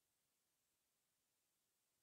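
Near silence: only a faint, even hiss.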